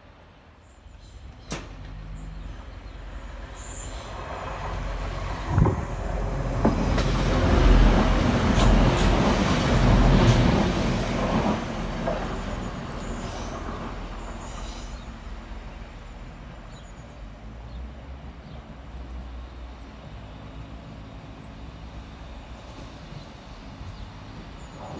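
TransPennine Express Class 185 diesel multiple unit passing close by on the rails. The noise swells to its loudest in the middle as it goes past, with a sharp clack on the track just before. It then eases to the steadier running of a second diesel unit, a Northern train, at the platform.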